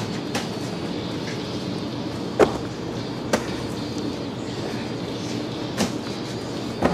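Steady drone of a factory ship's machinery, broken by several sharp knocks, the loudest about two and a half seconds in.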